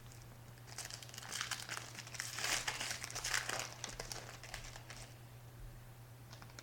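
Plastic wrapper of a football trading-card pack crinkling as it is torn open and crumpled, starting about a second in and lasting about four seconds, loudest in the middle. A steady low electrical hum runs underneath.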